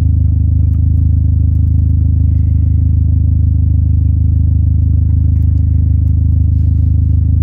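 Dodge SRT-4's turbocharged four-cylinder engine idling steadily, a low, even drone heard from inside the cabin.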